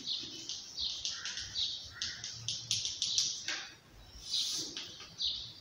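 Chalk writing on a blackboard: a run of short scratchy strokes as letters are written, with a brief pause a little under four seconds in.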